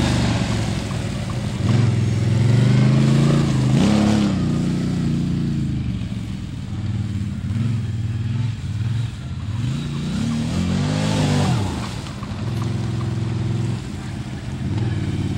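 ATV engines running and revving as the quads drive around, the engine pitch rising and falling several times, with the biggest swells a couple of seconds in and again about ten seconds in.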